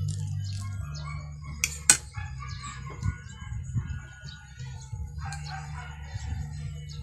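A rooster crowing, with a sharp click or clink about two seconds in that is the loudest sound, and a steady low hum underneath.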